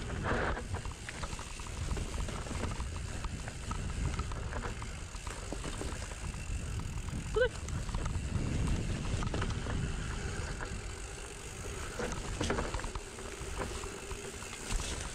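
Mountain bike ridden along a trail: a steady low rumble of wind and tyres, with the bike's chain and frame rattling and clicking, and one short squeak about halfway through.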